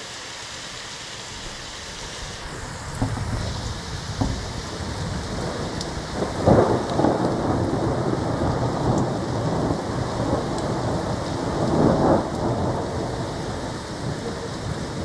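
Thunder rumbling over steady rain. The rumble builds from a few seconds in, peaks loudest around the middle and again near the end, then rolls on.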